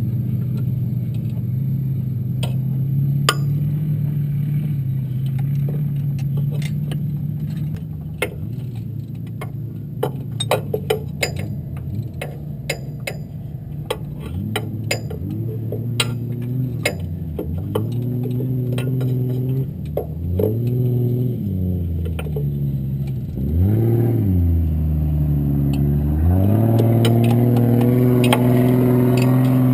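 Off-road race car's engine running, its pitch dipping and climbing again several times from about halfway and settling at a higher, steady speed near the end. Scattered sharp clicks and clatter sound over the middle stretch.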